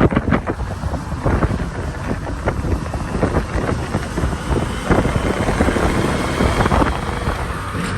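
Wind buffeting the microphone in gusts over the running and road noise of a motorcycle ridden two-up.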